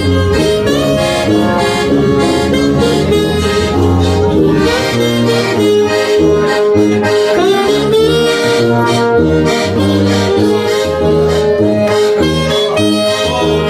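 Instrumental music: held melody notes over a bass line that moves from note to note.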